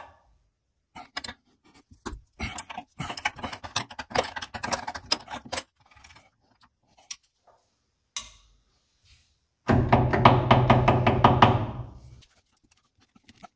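Metal wrench work on the jointer's cutterhead hold-down nuts: scattered clicks, clinks and knocks as the wrench is fitted and turned. About ten seconds in comes a louder, fast, even run of clicking lasting a couple of seconds, like a ratchet being spun.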